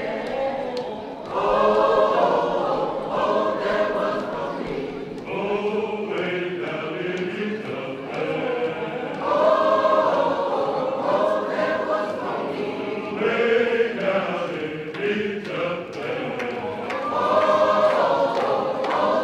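Large church choir of men's and women's voices singing a hymn, in long held phrases that swell and fade every few seconds.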